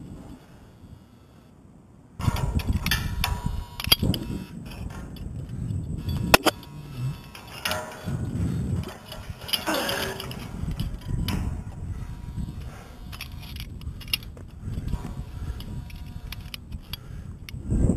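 Wind rumbling on the microphone of a climber's head camera, with repeated metal clinks and clanks of climbing gear against the steel tower. It is quieter for the first two seconds, then grows louder.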